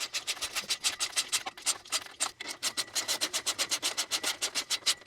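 Hand ratchet wrench clicking rapidly and steadily, about eight clicks a second, as a bolt is run in and tightened.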